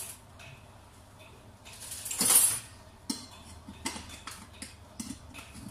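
Kitchen clatter of a metal kettle and utensils: a louder, noisy clatter about two seconds in, then a run of light clinks and knocks.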